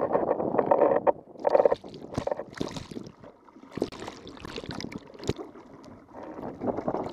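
Wind and water rushing past an action camera on a windsurf board, then after about a second irregular splashing and gurgling with sharp knocks as water washes over the camera. The steady rushing returns near the end.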